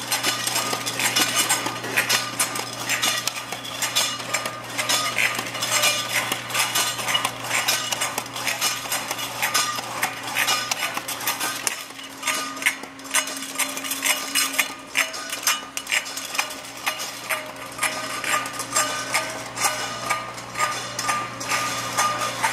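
Empty tin cans clinking and clattering against one another and the guide rails as they ride a running can-handling conveyor line, in a rapid, irregular stream, over the steady hum of the line's drive motors.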